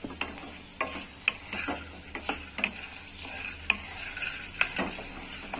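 A spatula stirring raw peanuts, soya chunks and chickpeas in a non-stick kadhai: irregular scrapes and clicks as the pieces are pushed against the pan, over a faint steady sizzle of frying.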